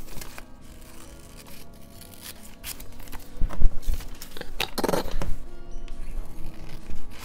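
Scissors snipping through painted paper, with the sheet rustling as it is turned and a louder crinkle about five seconds in, over background music.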